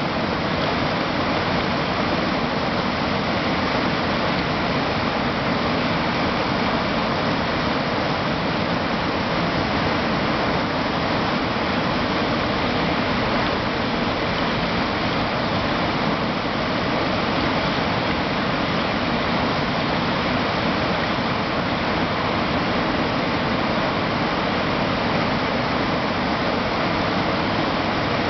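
River water flowing steadily past a rock in the shallows, an even rushing sound with no change throughout.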